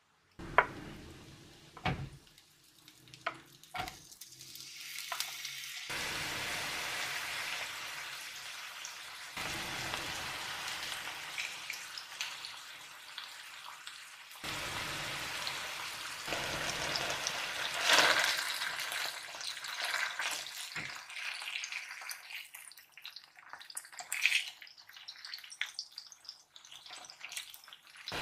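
A fish steak and vegetables sizzling in a frying pan. A few sharp knocks come in the first four seconds, then the sizzle starts at about six seconds and jumps in level several times.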